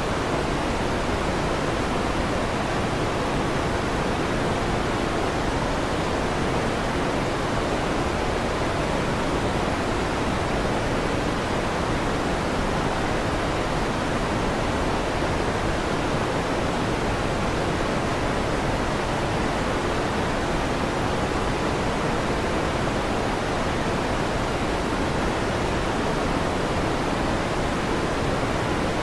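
Steady fan noise: an even, unchanging hiss, fullest in the low and middle range.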